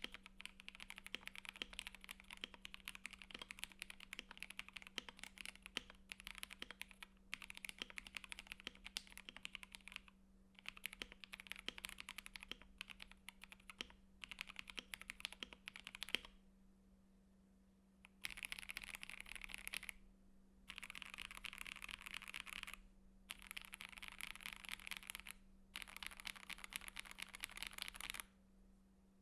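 Typing on a KBD67 Lite mechanical keyboard with lubed Gateron Black KS-3x47 linear switches in a polycarbonate plate, under ASA-profile keycaps. A steady run of keystrokes breaks off for a couple of seconds about halfway through. Four bursts of very fast keystrokes with short gaps between them follow, and the typing stops shortly before the end.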